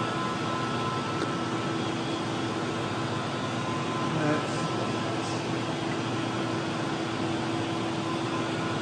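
Steady hum of shop ventilation, an even noise with a few faint steady tones, broken by a couple of faint clicks.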